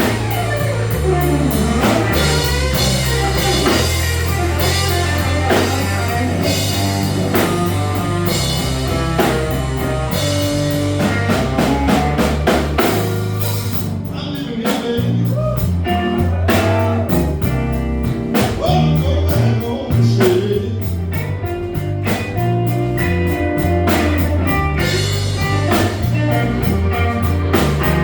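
A live blues band playing a slow blues: electric guitar over bass and drum kit, the higher notes bending up and down.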